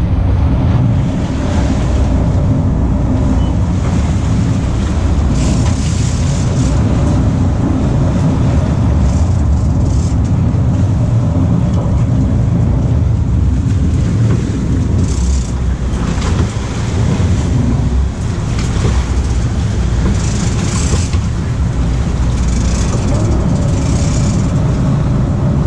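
Fishing boat's engines running with a steady low rumble, with water splashing and hissing against the hull in short surges, more toward the end.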